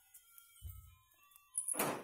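A steel bowl set upside down over a steel pot as a lid: a dull knock, then a loud metallic clatter near the end as it lands on the rim.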